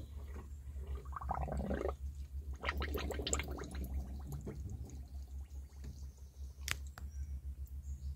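Coolant gurgling and bubbling in the open radiator filler neck as trapped air burbles out of the cooling system, in two bursts in the first half, over a steady low hum. There is a single sharp click near the end.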